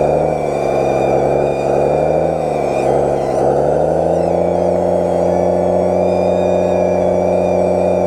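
Electric motors and gearing of a 1/14-scale hydraulic RC bulldozer running with a steady whine, heard close up from a camera mounted in its cab. The pitch sags briefly a couple of times as the motors take load, then holds steady.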